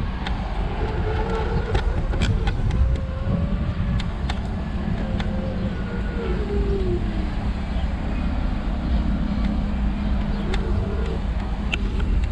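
Steady low rumble of a scooter rolling over city asphalt, mixed with street traffic as a car drives close alongside. A few light clicks are scattered through it.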